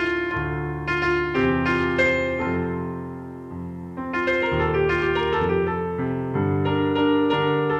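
Yamaha CP digital stage piano played slowly in held chords with a melody over them. It fades a little about three seconds in, then picks up again at four.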